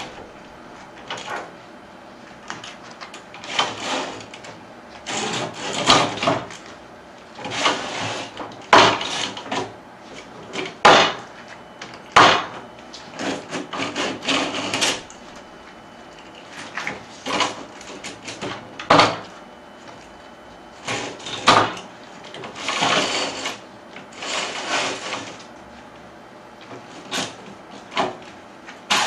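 Parts of a motorized curtain track being handled: irregular clicks, knocks and short sliding scrapes as the curtain carriers are pulled along the track.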